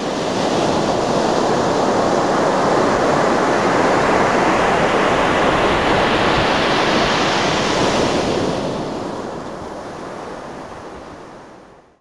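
A steady rushing wash of noise that swells in over the first second, loses its hiss after about eight seconds and fades out near the end.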